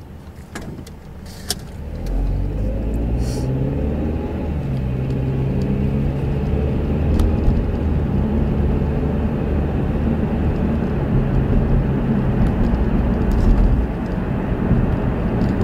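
Car engine and road noise heard from inside the cabin as the car pulls away: after a few light clicks, the engine note rises over a few seconds about two seconds in, then settles into steady running with tyre and road rumble.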